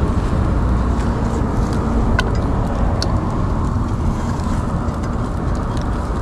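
Steady low outdoor rumble, with a few faint clicks and scrapes of a spatula pushing scrambled eggs out of a skillet into a bowl.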